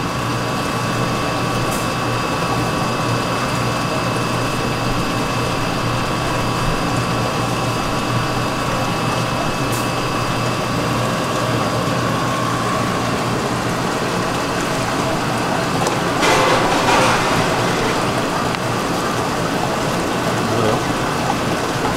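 Fish market background: a steady hum with a hiss of running water, and a louder rush of noise lasting about a second, some sixteen seconds in.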